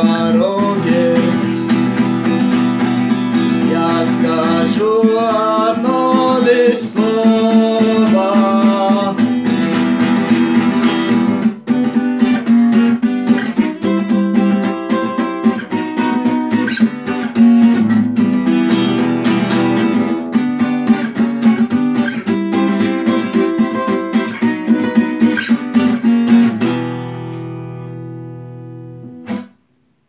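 Acoustic guitar strummed in a steady song rhythm. The strumming stops about 26 seconds in, and a last chord rings out and fades away.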